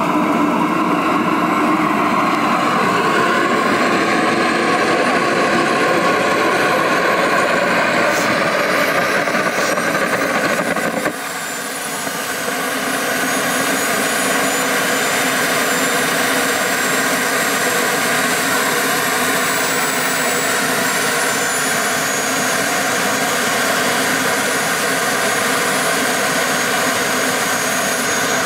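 Model jet's small turbine engine starting up and running with a steady high whine. About eleven seconds in the sound dips briefly, then a high whine rises and settles.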